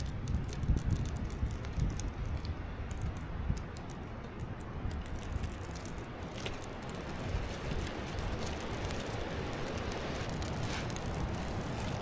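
Wind buffeting the microphone as a low rumble, with small crackles and rustling from birch bark and dry twigs being handled and lit. A broader crackling hiss comes in about halfway through, as the birch bark catches and begins to burn.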